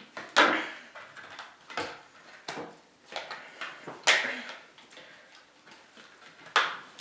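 A JT Proflex paintball mask's plastic lens and goggle frame being handled and pried apart, giving irregular plastic rustles and clicks; the loudest come about half a second in, about four seconds in, and near the end.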